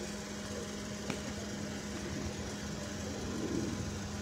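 Steady engine hum of a vehicle idling, with a faint click about a second in.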